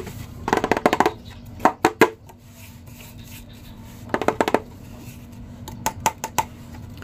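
Hard plastic clattering and tapping as a hollow plastic toy Thor hammer is handled: short clusters of clicks and knocks, about half a second in, around two seconds, about four seconds in and again near the end.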